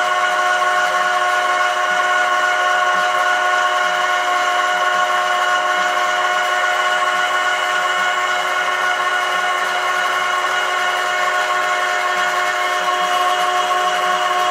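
A homemade screw oil press and its drive running steadily while pressing sunflower seeds, a constant mechanical whine made of several steady tones. It runs smoothly, with no vibration.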